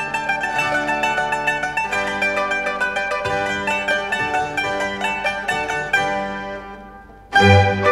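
Background music of quickly repeated notes fades out near the end, and a louder piece with deep low notes starts abruptly just before the end.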